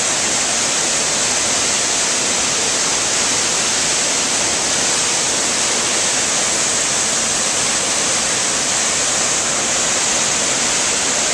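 Waterfall pouring into a plunge pool: a loud, steady rush of falling water with a strong hiss and no change throughout.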